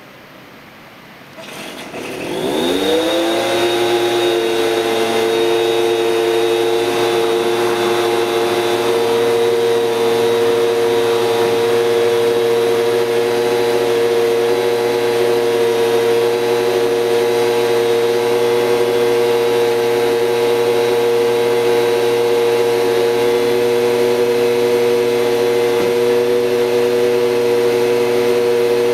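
Small two-stroke yard-tool engine starting to run about a second and a half in, rising quickly in pitch and then held at a steady high speed, a loud, even whine.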